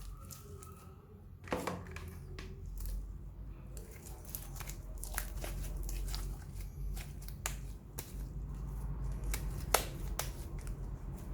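Slime being squished and stretched by hand, giving irregular sticky clicks and pops, with a louder pop about a second and a half in and another near the end.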